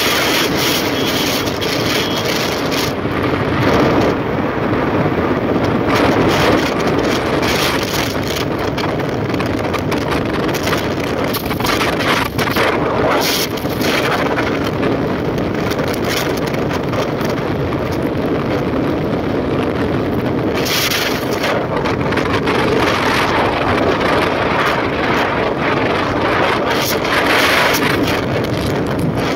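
Wind buffeting the microphone of a phone carried on a moving motorcycle at road speed, loud and gusty, with the motorcycle's engine and tyre noise mixed in underneath.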